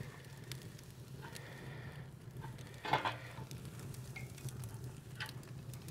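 Fat sizzling and crackling over hot charcoal in a Pit Barrel Cooker, with scattered small pops over a low steady hum. There is a brief louder sound about three seconds in.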